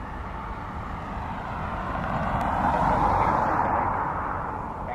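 A passing vehicle's rush of noise swells to a peak about three seconds in, then eases off.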